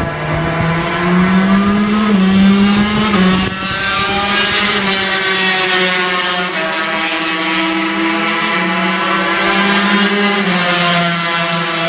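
Two-stroke V-twin engines of Honda NSR250 250cc Grand Prix racing motorcycles running at held revs. The engine note climbs over the first couple of seconds, drops about three and a half seconds in, then holds with small rises and falls.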